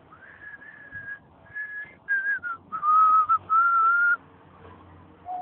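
A person whistling a short tune: a run of held notes that step down in pitch and climb a little on the last one.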